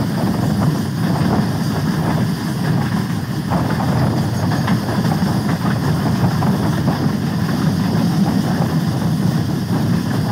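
Steady low rumble of a diesel train, with a few faint clicks.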